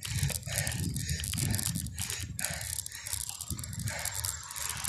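Bicycle clicking and creaking (a "lagitik") as it is pedalled hard up a steep climb, in irregular sharp clicks over a low wind and road rumble.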